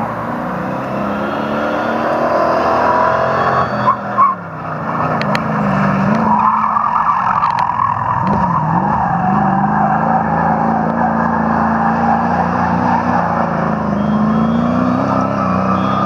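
GAZ rally truck's engine running hard, its pitch dropping and climbing again with gear changes and throttle as it drives past, with tyre skidding noise. Two short, loud peaks come about four seconds in.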